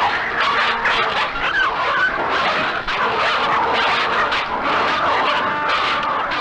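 Coyote pups in a noisy squabble over a kill: continuous growling, with short high yelps here and there.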